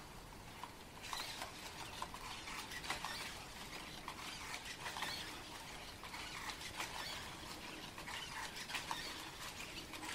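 Sony AIBO ERS-7 robot dog walking on a wooden parquet floor: its plastic paws and leg joints make quick, irregular clicks and taps, starting about a second in.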